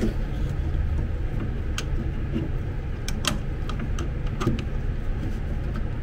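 A few irregular sharp metallic clicks and taps from a socket wrench on a bolt, the loudest about three seconds in, over a steady low hum.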